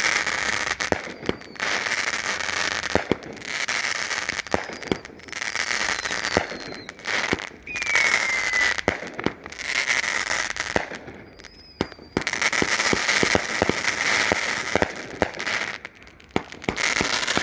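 Consumer fireworks going off in repeated bursts of crackling, about one to two seconds each, with many sharp pops and a few short falling whistles.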